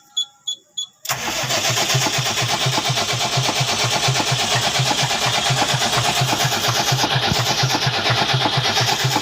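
Tata 2518 tipper truck's diesel engine catching about a second in, after a warning buzzer beeping about three times a second, then running with a steady, even beat. It is the engine's start after its fuel injection pump and injectors were refitted.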